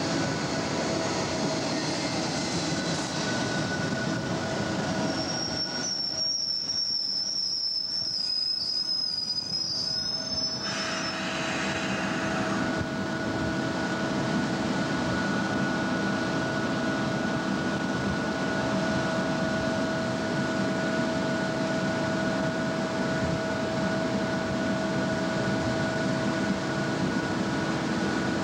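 SEPTA Silverliner electric commuter train pulling into the platform: rolling rumble, a high squeal for about five seconds as it slows, then a steady hum once it stands at the station.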